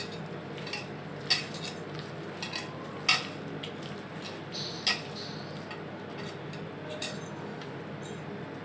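Batter of shredded cabbage and onion being mixed by hand in a plastic bowl: a low steady rustle with a few sharp clinks about two seconds apart, from bangles and hand knocking against the bowl.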